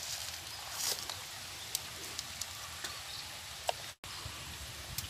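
Small clicks and rustles as fingers peel shallots and handle fresh red chilies on a banana leaf, over a steady outdoor background hiss. The sound briefly cuts out about four seconds in.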